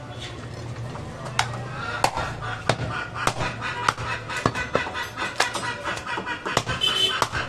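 Butcher's knife chopping through a goat rib rack on a wooden chopping block: repeated sharp knocks, roughly one every half-second, starting a second or two in.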